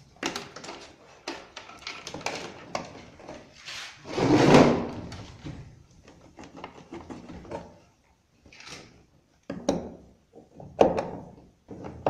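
Hands working wire connectors off the plastic lid switch of a twin-tub washing machine's spin dryer: scattered clicks, taps and plastic rattling, with a longer, louder rustling scrape about four seconds in.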